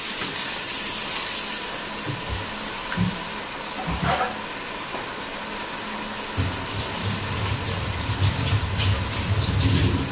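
Chopped onions and garlic sizzling in hot oil in a steel kadhai: a steady frying hiss. A low rumble joins about six seconds in.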